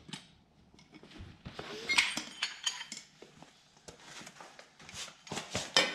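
Scattered light metallic clinks and clatter of hand tools and metal parts being handled, with a louder cluster of clanks near the end.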